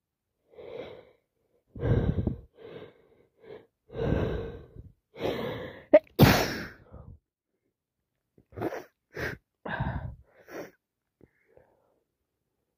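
A woman with a head cold gasping in several times as a sneeze builds, then sneezing hard about six seconds in, the loudest sound, followed by a quick run of sniffs.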